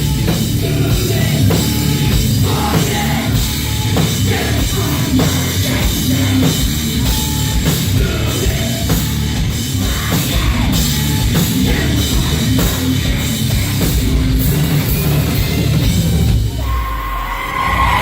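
Live heavy rock band playing loud, with a driving drum kit and heavy guitars. About sixteen seconds in the band drops back and a sung or yelled vocal line comes forward.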